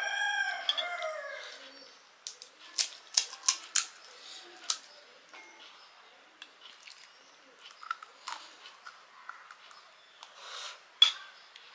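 Crisp panipuri shells crunching: a quick run of sharp cracks about two to five seconds in, then fainter scattered crunches and chewing. A short drawn-out vocal sound comes right at the start.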